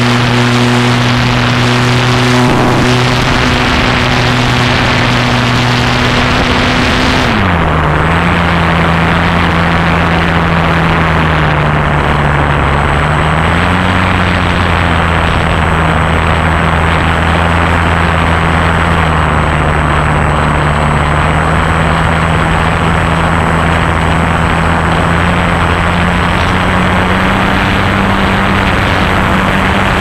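Motor and propeller of a model airplane, heard close up from a camera riding on it, running with a steady hum over a rush of air. About seven seconds in the pitch drops sharply and stays lower, then creeps back up near the end.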